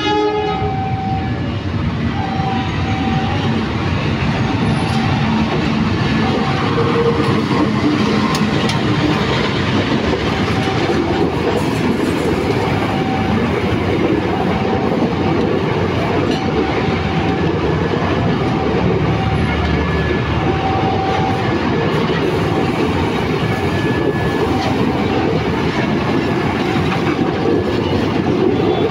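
KA Serayu passenger train with economy coaches passing close by, wheels clattering over the rail joints as the cars roll past. A horn sounds briefly at the start, and a level-crossing warning bell repeats throughout.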